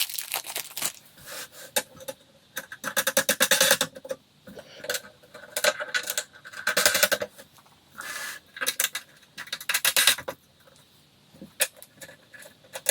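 Handling and assembly noise on a flat-pack nightstand: several bursts of rapid clicking and scraping, each lasting up to about a second and a half, with short quiet gaps between.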